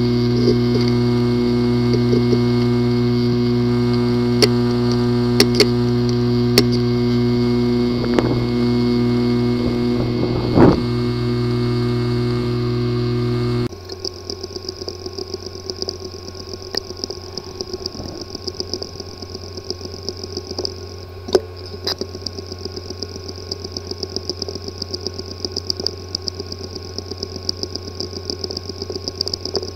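Sample recordings of failing hard disk drives whose disk assembly is physically damaged. First a loud steady buzz with a few sharp clicks. About halfway through it changes abruptly to a quieter whir with frequent small ticks and one sharper click.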